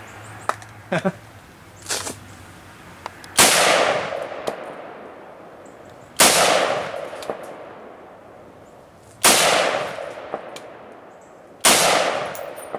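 Four single shots from a .308 rifle, spaced about three seconds apart, each followed by a long echo that fades away.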